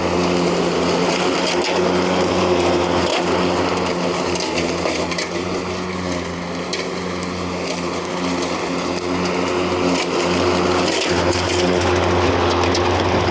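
Mowrator S1 all-wheel-drive remote-controlled electric lawn mower running while mowing: a steady motor and blade hum with grass being cut and occasional clicks from thrown debris. The level dips a little in the middle.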